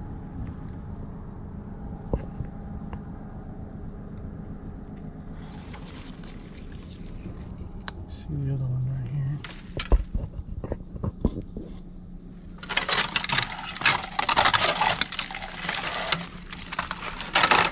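Steady high-pitched chorus of night insects. From about two-thirds of the way in, loud rustling and crackling of dry leaves and debris is added on top.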